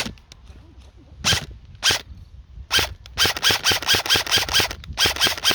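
Airsoft gun firing: a few single shots, then a rapid string of about ten shots at roughly seven a second, then a few more shots near the end.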